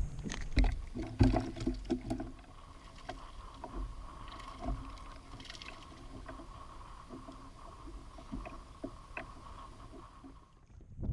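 Knocks and low rumble from a fishing kayak drifting on open water, loudest in the first two seconds, then scattered light clicks over a faint steady high tone that cuts off abruptly near the end, followed by a single thump.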